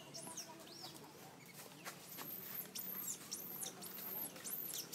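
Infant macaque giving repeated high-pitched squealing cries, each rising and then falling in pitch. A few come in the first second and a quick run of about two a second follows from about two seconds in. These are a baby monkey's distress cries.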